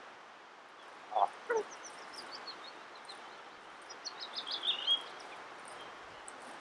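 Willow ptarmigan hen giving two short, low calls about a second in. Around them come two runs of high, thin bird notes that step down in pitch, the second one louder, in the middle.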